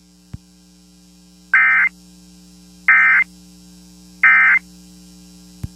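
Emergency Alert System end-of-message data tones: three short, identical bursts of digital tone about 1.4 seconds apart, marking the end of the alert. A steady electrical hum runs underneath, with a faint click near the start and another near the end.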